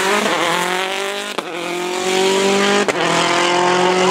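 Citroën C4 WRC rally car's turbocharged four-cylinder engine accelerating hard through the gears, its pitch rising steadily. It upshifts twice, about a second and a half in and near three seconds in, and each shift is marked by a brief crack and a sudden drop in pitch.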